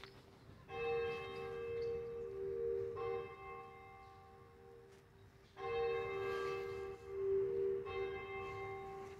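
A church tower bell tolling slowly: four strokes about two and a half seconds apart, each one ringing on until the next.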